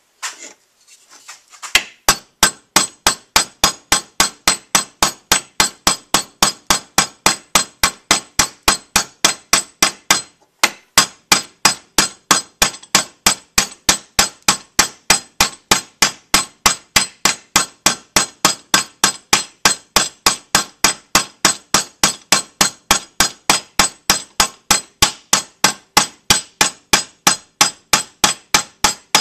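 A hand hammer striking steadily at about three blows a second, peening over the end of a galvanized nail used as a pin through a pickaroon's forged steel head and wooden handle. There is one short break about ten seconds in.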